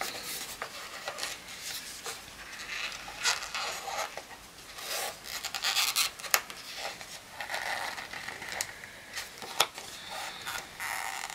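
Paper and sticker sheets being handled: irregular rustling, rubbing and short scrapes as planner stickers are peeled and pressed onto the page, with a few sharp clicks, the strongest about six seconds in and near the end.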